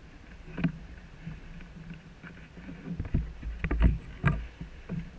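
Water slapping and rushing against a sailing yacht's hull under way, with irregular thumps, heaviest between about three and four and a half seconds in.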